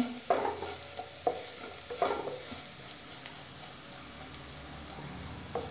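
Spiced potato cubes being stirred in a pan of hot oil: a few scraping strokes of a utensil against the pan over a light, steady sizzle of frying.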